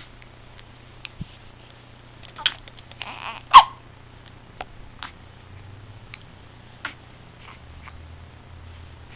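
A few short, sharp hiccups spread over several seconds, the loudest about three and a half seconds in.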